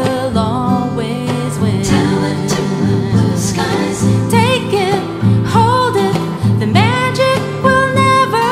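A song with guitar and multitracked female vocals: sustained sung lines with vibrato over a steady plucked and strummed guitar accompaniment.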